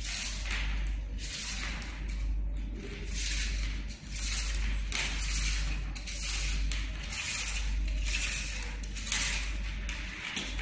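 Flexible LED strip being pulled off its plastic reel: repeated rustling swishes, a little more than one a second, over a steady low hum.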